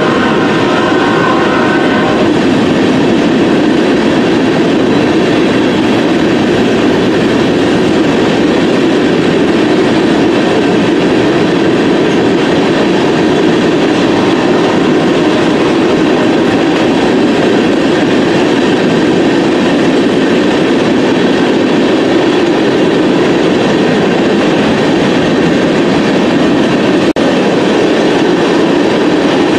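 A freight train of tank cars rolling past close by: a loud, steady rumble of steel wheels on the rails. A set of higher steady tones sounds at the start and stops about two seconds in.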